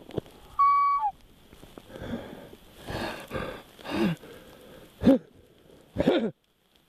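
A man sobbing: a high, held whimper that drops at its end about a second in, then wheezing, gasping breaths and short broken cries that fall in pitch, the last one near the end.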